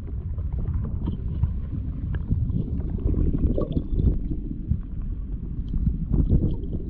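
Muffled water sloshing and rumbling, heard through a camera held underwater, with many small scattered clicks and knocks.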